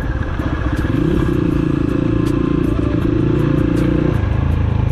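Motorcycle engine running while the bike is ridden over a rough dirt road. The engine note eases off right at the start and again about four seconds in, then picks back up, with scattered faint clicks throughout.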